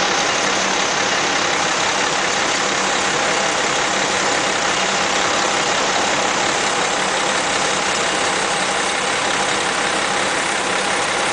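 Steady city street noise of traffic, with engines idling, and a thin steady hum running through it.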